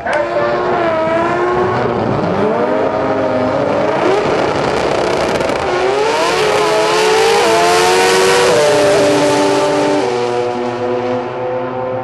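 Two drag-racing cars' engines revving at the starting line, the pitch climbing and falling repeatedly and loudest a little past halfway. From about ten seconds in the engines hold a steady note.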